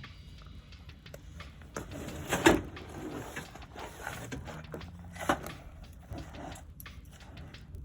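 Irregular clattering and knocking of small hard objects being handled and stacked, with two sharper, louder knocks about two and a half and five seconds in.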